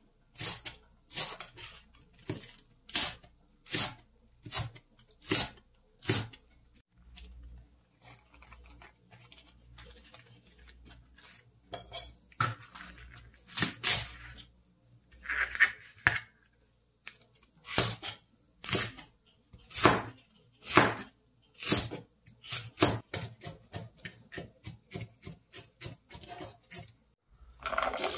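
Kitchen knife cutting green onion and napa cabbage on a cutting board, each cut a sharp knock on the board, about one a second, with a lull in the middle and quicker cuts near the end. At the very end, cubed radish is tipped from a plastic container into an aluminium pot of water.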